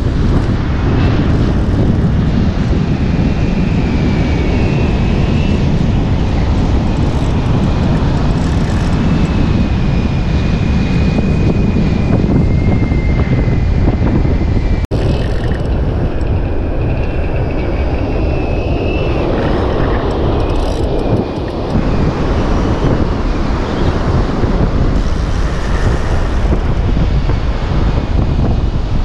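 Strong wind buffeting the microphone on an open beach, a loud steady rumble, with surf behind it and a faint wavering high whine on top.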